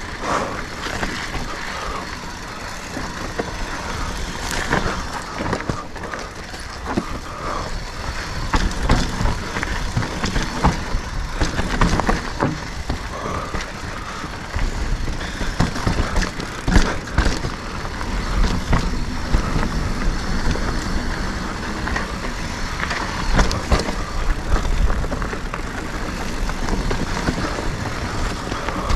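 Mountain bike riding over a rocky trail section: tyres, frame and drivetrain rattling and knocking as it bounces over rocks, with many short clatters over a steady low rumble.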